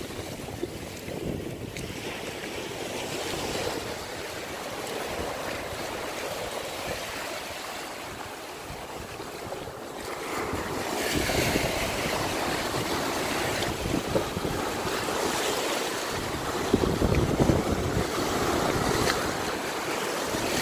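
Small surf waves washing up over sand at the water's edge, with wind buffeting the microphone. The wash grows louder about halfway through.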